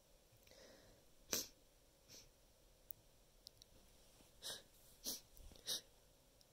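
A person's short, sharp bursts of breath through the nose, five in a few seconds, the loudest about a second in and near the end, with a soft breathy inhale before the first.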